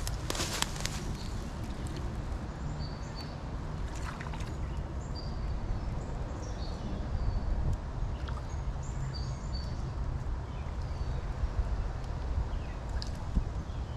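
Creekside ambience: a steady low rumble with small birds giving short high chirps now and then. A brief rustle with clicks comes at the very start.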